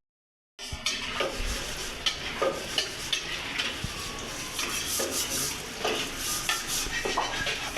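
Spatula stirring and scraping food in a frying pan in irregular strokes, with a sizzle underneath. The sound starts after a brief cut-out.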